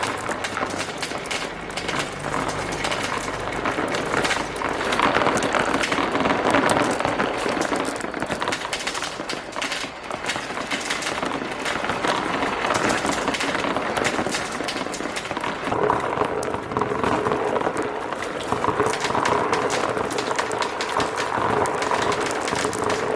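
Many marbles rolling and clattering down plastic marble-run tracks, with a dense run of clicks and knocks. About two-thirds of the way in, a steadier rolling hum joins the clatter.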